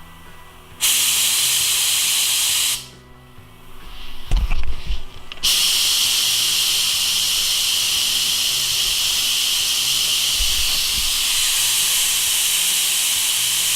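Paint spray gun hissing with compressed air set at 50 psi. A short spray starts about a second in and stops, a few low thumps of handling follow, and from about five and a half seconds on a long steady spray.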